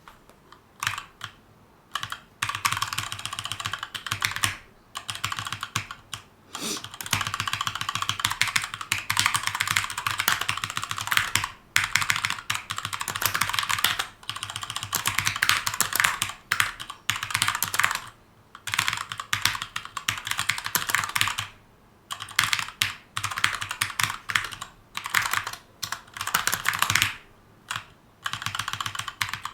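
Typing on a Keychron K2 mechanical keyboard with brown tactile switches: rapid bursts of key clicks lasting a few seconds each, broken by short pauses of about a second.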